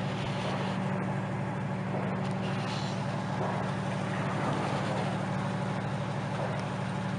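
An engine running steadily: a low, even drone with no change in speed.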